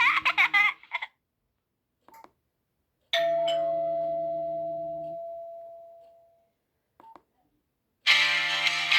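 Nokia 1280 phone's loudspeaker playing its built-in tones: a warbling melody cuts off about a second in, then a single doorbell-like chime rings out about three seconds in and fades away over about three seconds. Near the end the next tone starts. There are faint clicks between the tones and a low hum under each tone while it sounds.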